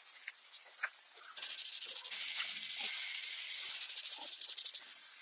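A steady high-pitched hiss, like air or spray rushing from a nozzle or tool. About a second and a half in it gets louder and flutters rapidly, with faint light knocks underneath, then it cuts off suddenly.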